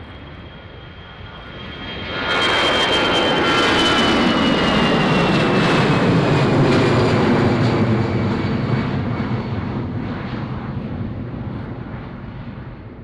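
Twin jet engines of an Airbus A320-family airliner at takeoff thrust as it lifts off and climbs away. The noise grows suddenly loud about two seconds in, with a crackling edge, then slowly fades, while a high whine falls in pitch.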